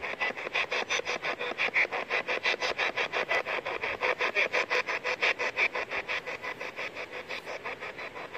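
Ghost-hunting spirit box sweeping rapidly through radio stations: fast chopped bursts of static and radio fragments, about seven a second.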